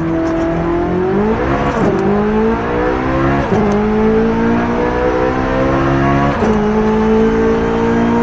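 C8 Corvette Z06's flat-plane-crank V8 accelerating hard through the gears. Engine pitch climbs and drops sharply at three upshifts, and climbs more slowly in each higher gear.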